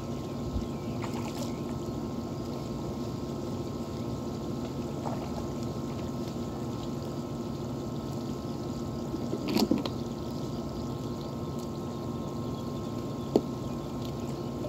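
Water splashing and trickling as a small dog is hand-washed in a plastic tub, with one louder splash about two-thirds of the way through and a short click near the end, over a steady low machine hum.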